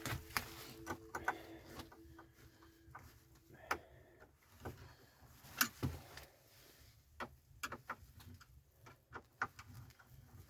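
Scattered light knocks and clicks of wood and tools being handled, irregularly spaced, with the loudest knocks a little under 4 s and near 6 s in.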